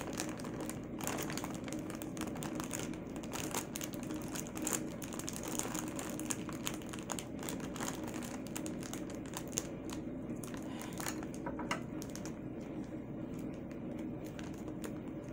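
Thin foil balloon crinkling and crackling as it is handled and squeezed in the hands.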